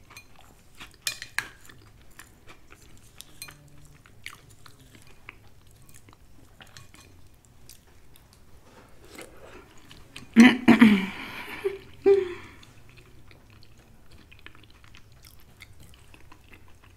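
Close-up eating sounds: chewing, with small clicks of a metal spoon against a glass bowl of peas. A louder sound lasting about two seconds comes about ten seconds in.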